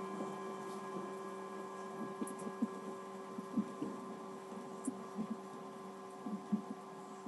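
Singing bowl ringing on after being struck, a steady hum of several tones slowly fading, with faint soft knocks scattered through the middle and end.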